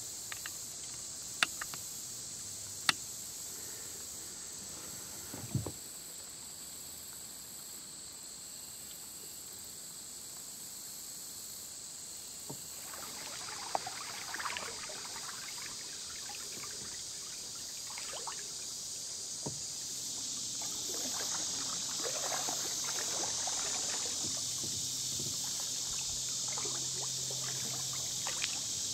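Quiet river ambience from a kayak: a steady high hiss with a few light clicks, then from about halfway in, repeated soft paddle strokes and water dripping and sloshing against the hull.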